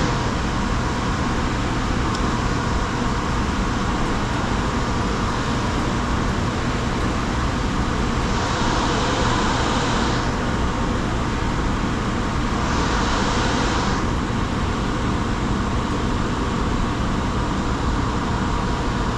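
Steady rushing of river water, an even hiss at a constant level, brightening briefly twice.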